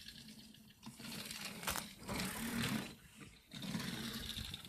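Die-cast toy car's small wheels rolling across a surface with a buzzing rattle, in three short runs of about a second each. It doesn't roll very far.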